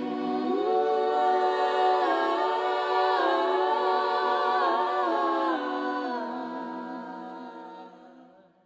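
Soundtrack music: layered, sustained vocal-like chords that shift in pitch every second or so, fading out near the end.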